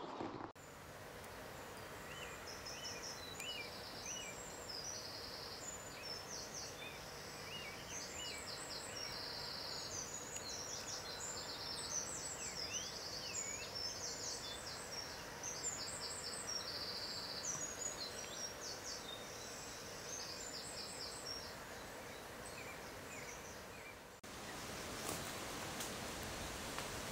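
Several small birds singing and calling: high chirps, quick trills and runs of repeated notes over a faint steady hiss. A little after 24 s the birdsong stops at a cut, and a steady rushing hiss takes over.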